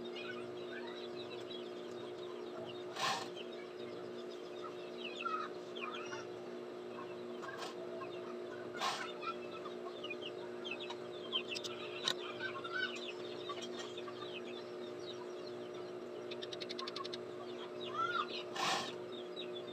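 Chickens clucking in short calls here and there, over a steady hum.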